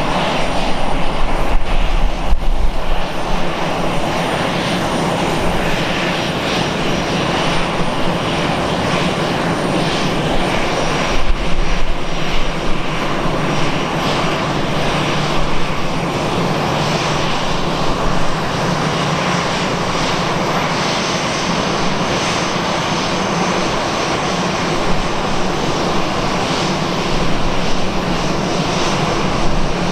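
An Airbus A320-214's CFM56 turbofan engines running at taxi power as the airliner rolls along the taxiway, a steady jet whine and rush.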